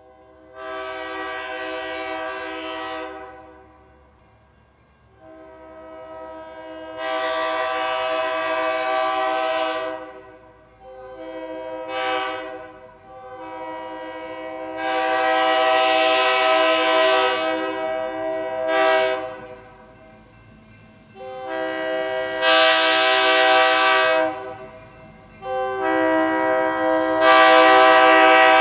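A diesel locomotive's air horn sounds a series of blasts for a road crossing, long, long, short, long, then more long blasts. It grows louder as the train approaches.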